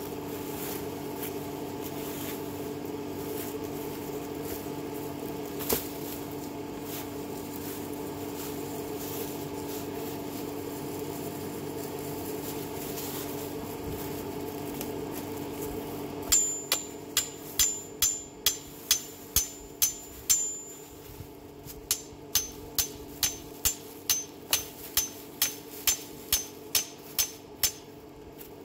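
A steady low hum, then from about halfway on a hammer striking metal, roughly two blows a second. The first several blows each leave a short high ring; after a short pause a longer, even run of blows follows.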